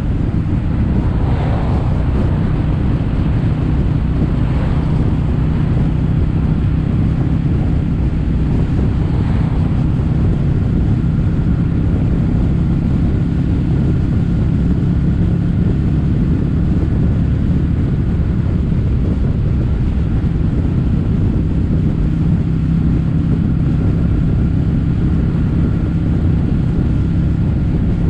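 Kawasaki W800's air-cooled parallel-twin engine running steadily at cruising speed through stainless steel Cabton-style silencers, with wind noise on the microphone.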